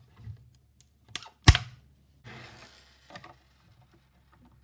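Handling noise of a speaker-system teardown: scattered clicks and knocks of plastic parts and a loosened circuit board being handled. The loudest is a sharp knock about a second and a half in, followed by a short scraping rustle.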